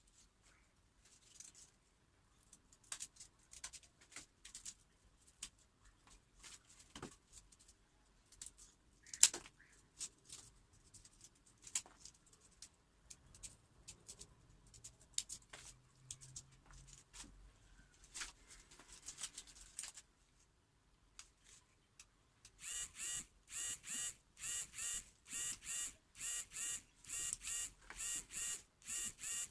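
Hand work on cardboard: scattered small taps, clicks and rustles, then in the last third a regular rasping stroke repeated about twice a second.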